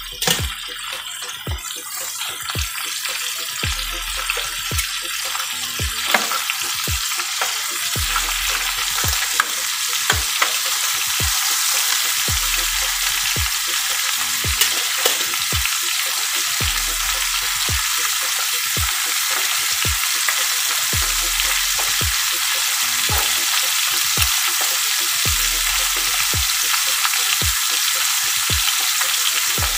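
Whole chicken frying in butter: a steady sizzle with frequent small crackles and pops, growing louder over the first few seconds, then holding.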